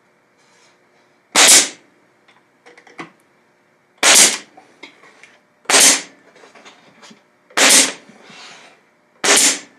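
DeWalt pneumatic nailer firing five times, about every two seconds, driving nails into wood, with light clicks and taps between the shots.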